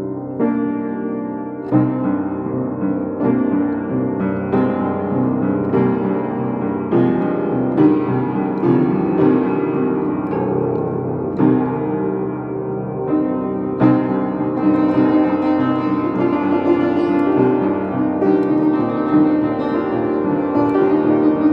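Piano music: chords and melody notes struck every second or so, growing fuller and a little louder about two-thirds of the way through.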